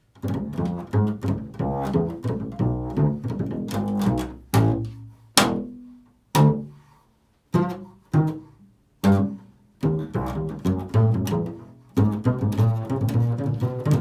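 Upright double bass played pizzicato in an improvised line. Quick runs of plucked notes at first, then single notes with short gaps between them in the middle, picking up into a busy run again near the end.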